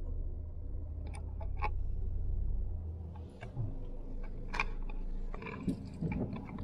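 Low rumble of a car on the move, heard from inside the cabin. It drops away about three and a half seconds in, leaving scattered light clicks and knocks.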